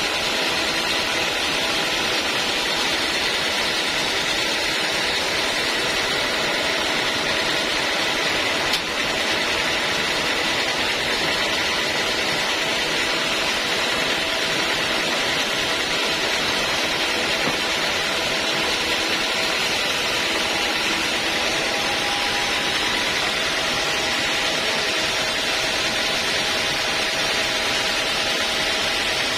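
Homemade band sawmill running steadily, its motor and blade giving an even mechanical noise with a few faint steady tones. There is one light click about nine seconds in.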